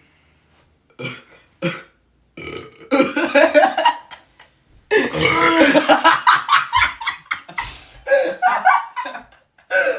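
Loud burping after chugging carbonated sparkling water: two short burps about a second in, then two long, drawn-out belches of two seconds or more each, and shorter burps near the end.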